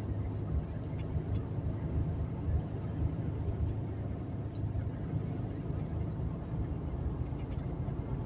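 Steady low rumble of a vehicle's engine and road noise heard from inside the cab.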